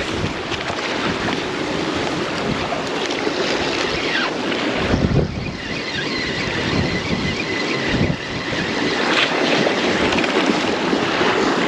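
Strong gale wind buffeting the microphone in gusts, over the wash of sea surf.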